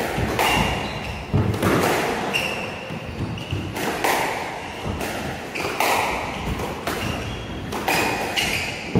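A squash rally: the ball is struck by rackets and slaps off the walls in a string of sharp hits, each ringing in the enclosed court. Short squeaks of court shoes on the wooden floor come between the hits.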